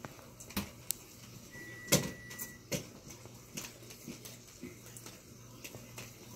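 Motorized ball toy with a furry weasel tail rolling and bumping over carpet while a kitten bats at it: scattered light knocks and clicks, the loudest knock about two seconds in, with a thin steady tone for about a second around it.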